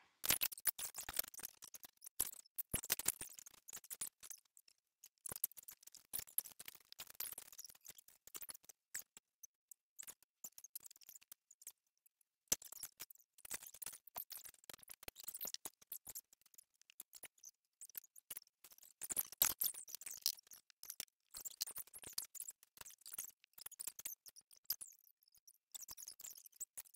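Faint, irregular rustling, light clicks and soft knocks of blankets, a quilt and couch cushions being handled and moved about to build a fort.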